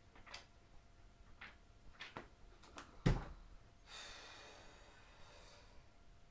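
Paper pages turned and rustled a few times, then a soft thump about three seconds in as the reading matter is dropped onto the sofa, followed by a long breathy sigh.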